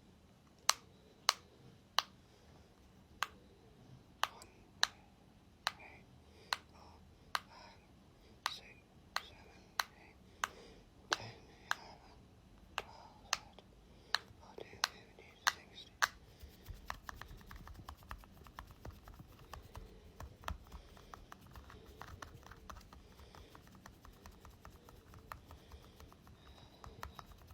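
ASMR tapping on a ball: crisp single clicks about once or twice a second, then from about halfway a denser run of fast, fine crackling taps and scratches.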